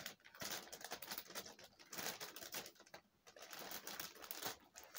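Plastic poly mailer bag rustling and crinkling in irregular bursts as it is handled and pulled at.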